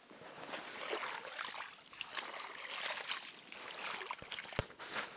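Water splashing and trickling in a plastic-lined azolla pond as the azolla is harvested from it, with two sharp clicks a little past four seconds in.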